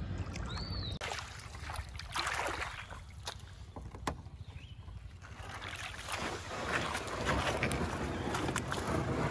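A Sun Dolphin Aruba plastic kayak being run up and dragged onto a muddy riverbank: uneven scraping and sloshing of the hull through shallow water and mud, with a sharp knock about four seconds in.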